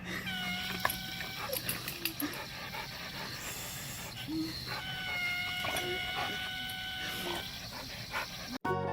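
A dog whining in two long, steady high-pitched cries: a short one at the start and a longer one held for about two and a half seconds from about five seconds in.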